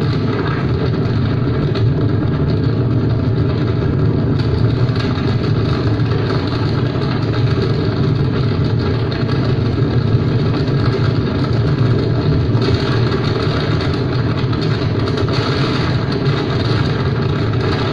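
Speedboat engine running steadily under way, mixed with wind and water rushing past the hull.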